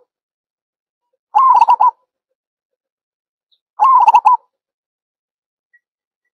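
Zebra dove (Java dove) cooing: two short phrases, each a quick run of about five rolling coo notes lasting about half a second, repeated about two and a half seconds apart with silence between.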